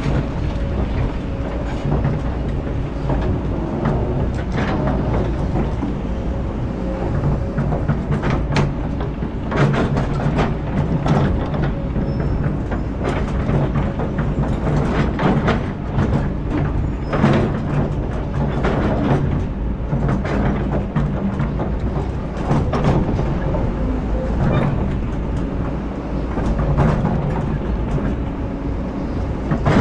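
Kobelco hydraulic excavator's diesel engine running steadily under load, with repeated clanks and knocks of metal and rock as it works the boulders.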